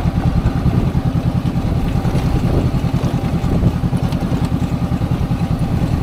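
Honda CB500X motorcycle's parallel-twin engine running steadily at low revs, an even pulsing exhaust note as the bike rolls along an unsealed track.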